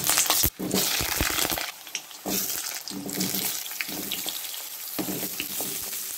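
Cut potatoes frying in hot oil in a kadai: a loud sizzle that is strongest for the first couple of seconds after they go in, then settles to a steady frying hiss, with a few knocks of potato or spoon against the pan.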